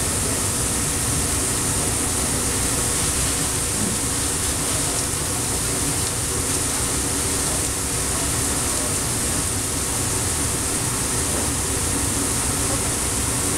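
Burger patties and onions sizzling on a flat-top griddle, a steady hiss over a steady low mechanical drone.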